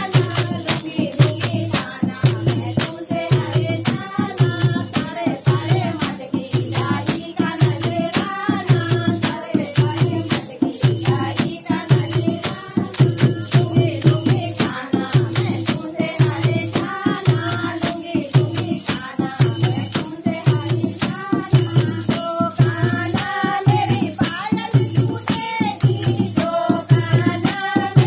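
Live devotional bhajan: a woman's singing voice carries the melody over a steady dholak drumbeat and bright jingling hand percussion.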